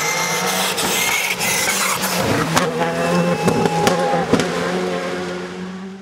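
Škoda Fabia R5 rally car's engine running hard on a gravel stage as the car comes past and pulls away. Several sharp cracks cut through the engine note. The sound fades out near the end.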